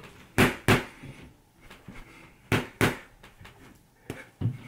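Padded leather boxing gloves thudding: three quick double knocks, about two seconds apart.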